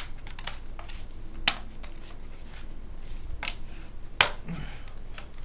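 Plastic memory-compartment cover of an HP Pavilion g7 laptop being pressed back into place: a series of sharp plastic clicks and snaps as its clips catch, the loudest about a second and a half in and again about four seconds in.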